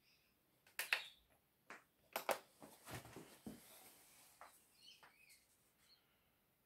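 Sharp clicks and light knocks of a knife-edge sharpness tester and its blade clamp being handled and set in place on the test scale, several in quick succession in the first couple of seconds, then a brief rustle and faint small handling sounds.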